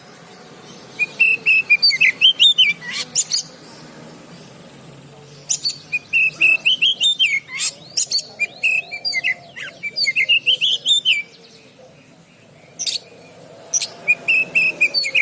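Oriental magpie-robin (kacer) singing loud, rapid phrases of whistled and chattering notes. The song comes in three runs separated by short pauses.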